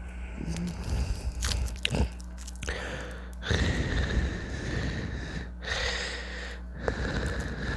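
Close-miked chewing and crunching of food, with a few sharp clicks early on and stretches of breathy noise.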